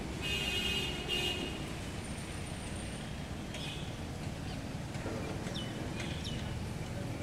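Residential street background: a steady low rumble of traffic, a short high-pitched toot in the first second or so, and a few brief bird chirps later on.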